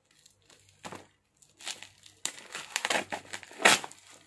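Black plastic and bubble-wrap packaging crinkling as it is handled and cut open with scissors. Little happens for the first second and a half, then comes a run of irregular crackles, loudest near the end.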